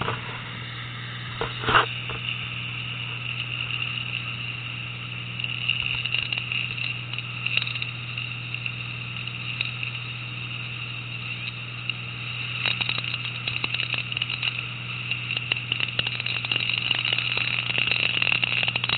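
Fishing boat's engine running steadily under the rush and churn of the wake water behind the stern, the water noise growing louder toward the end. A single sharp knock about two seconds in.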